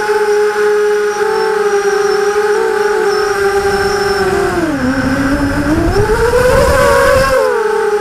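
ImmersionRC Vortex racing quadcopter on a 4S battery, its brushless motors and propellers whining steadily as heard from the onboard camera. About halfway through the pitch drops as the throttle eases, then rises higher as it is pushed back up, with rumbling wind noise until near the end.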